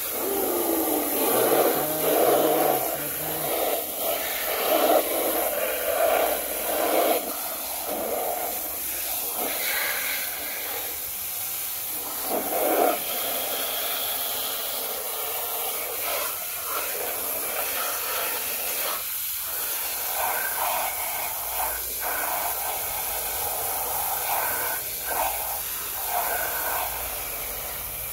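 Garden hose spray nozzle jetting water onto plastic toys: a steady hiss of spray with water splashing and drumming on hollow plastic. It is rougher and louder in the first half, where the jet plays over a toy garbage truck, and steadier later on a toy boat.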